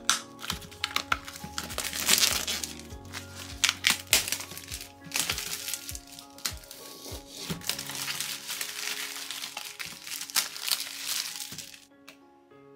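Clear plastic shrink-wrap crinkling in irregular bursts as it is torn and peeled off a cardboard box. It dies down near the end.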